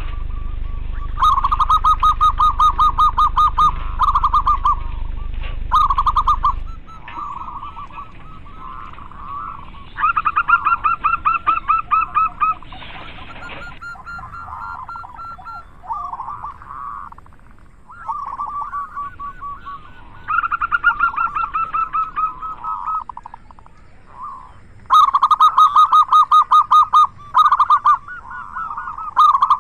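Zebra doves (perkutut), male and female, calling together: repeated bouts of rapid staccato cooing notes, several a second, with softer overlapping calls in between.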